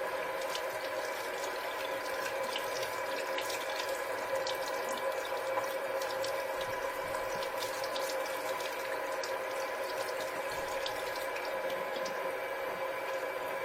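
Water running steadily, with many small splashes, over a constant hum of several steady tones.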